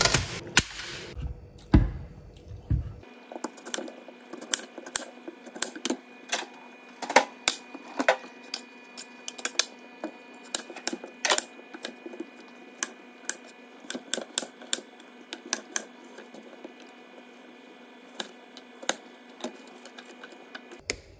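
Irregular sharp clicks and clacks, roughly two or three a second, over a faint steady hum, with a couple of louder knocks in the first two seconds.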